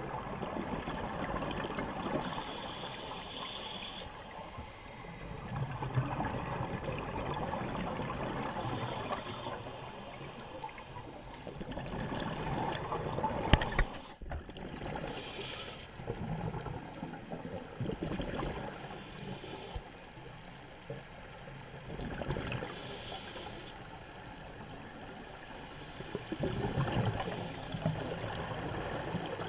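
Scuba diver breathing through a regulator underwater: a hiss on each inhale and a burst of bubbling on each exhale, repeating every few seconds. A single sharp knock comes about halfway through.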